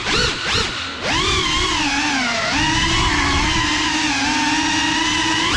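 Brushless motors and ducted 3.5-inch propellers of a GEPRC Cinelog 35 cinewhoop FPV drone whining, the pitch swinging quickly with the throttle. It climbs sharply about a second in, dips briefly a little after two seconds, then holds a fairly steady high whine.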